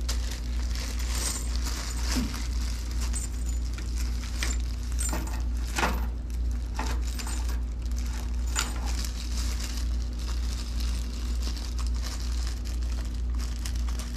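Loose bolts and washers clinking and jingling as they are picked up and handled: scattered light clinks over a steady low hum.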